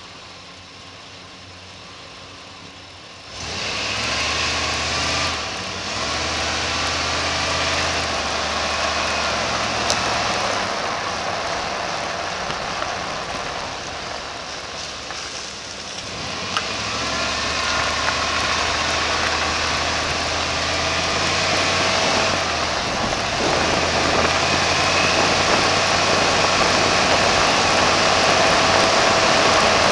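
Outside microphone on the front of a 1992 Chevy Suburban: a low steady hum while it waits at first, then from about three seconds in the truck pulls away and a dense rush of wind and road noise covers the microphone, with a low engine drone underneath, growing louder toward the end as it picks up speed.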